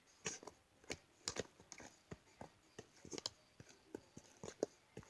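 Irregular light taps and clicks, a few a second, like typing a message on a device.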